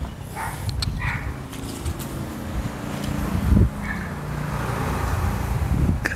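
Motor vehicle engine running, a low steady hum that swells gradually toward the end, with a few faint clicks in the first second.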